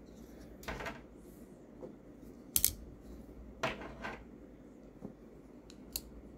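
Folding pocket knives being picked up off a cutting mat one at a time, with a handful of short, light clacks and clinks as they are handled.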